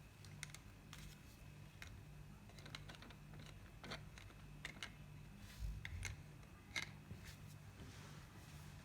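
Light, irregular clicks and taps of small plastic toy kitchen pieces being handled, over a faint steady hum.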